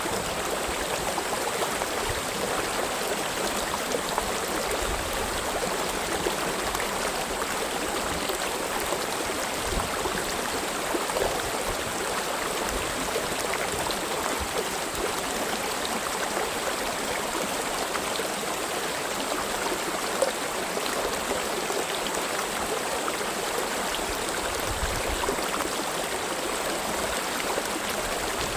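Mountain stream running over rocks: a steady rush of water with small splashes and gurgles.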